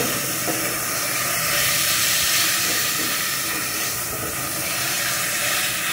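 Ground beef sizzling steadily as it fries in a saucepan, stirred with a silicone spatula.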